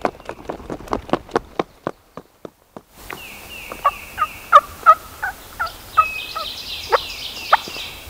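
Wild turkey gobbling in repeated bursts of rapid, sharp notes, the loudest about four and a half to five seconds in.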